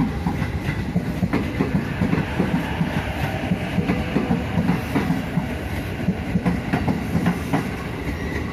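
Electric commuter train passing close by: a steady rumble with many short clacks of wheels running over the rails.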